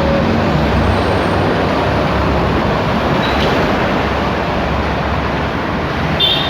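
Steady rumble of road traffic, with a short high-pitched beep near the end.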